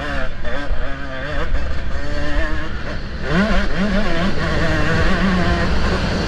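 Motocross bike engine heard from the rider's onboard camera, revving up and down. About three seconds in it accelerates hard in a run of quick rising revs, then holds high revs.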